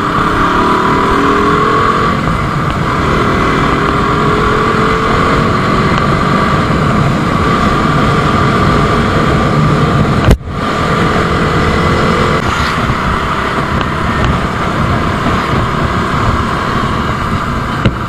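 KTM motorcycle engine running while being ridden, its pitch rising as it accelerates in the first few seconds and again shortly before twelve seconds in. A single sharp click about ten seconds in.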